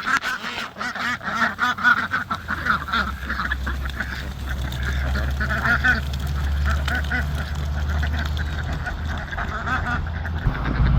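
A flock of domestic ducks quacking as they hurry out, the calls thick in the first few seconds and thinning out later, over a steady low rumble.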